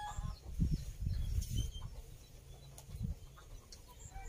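A rooster's crow cuts off at the very start, followed by low, irregular rumbling and dull bumps.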